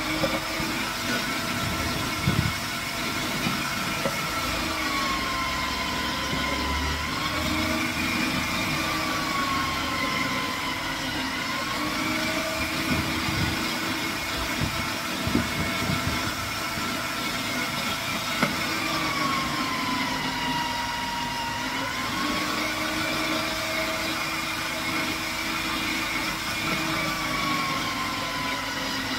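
Electric squash grating machine running steadily as squash is pressed down its feed chute. Its motor whine sags in pitch and recovers several times, with a few light knocks.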